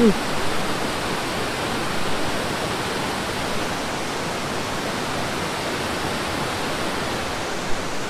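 Wide waterfall cascading over stepped rock ledges into a pool: a steady, even rush of falling water.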